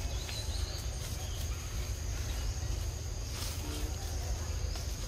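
Forest ambience: a steady high insect drone over a constant low rumble.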